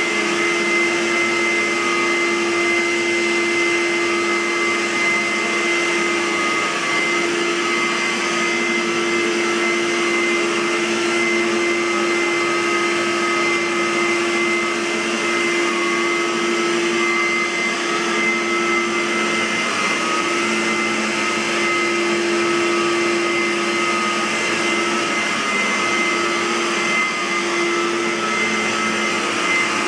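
Aerus Lux Guardian (Electrolux U147E) bagged upright vacuum cleaner running steadily, its motor giving a constant whine with a high steady tone over the airflow rush. The pitch dips slightly for a moment a few times.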